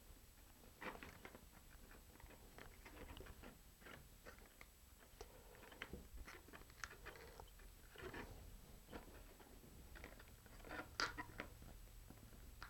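Faint, scattered clicks and crinkles of laser-cut jig parts being handled and their tabs pressed into slots, with a sharper click about eleven seconds in.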